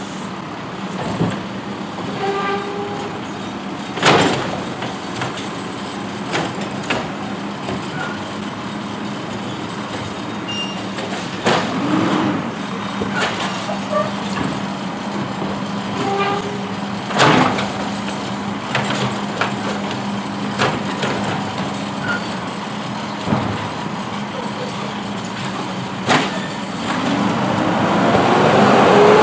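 Automated side-loader garbage truck stopped at the curb, its diesel engine running steadily while the hydraulic arm tips a wheeled trash cart, with several sharp clanks and bangs as the cart is shaken out and set down. Near the end the engine revs with a rising pitch as the truck pulls away.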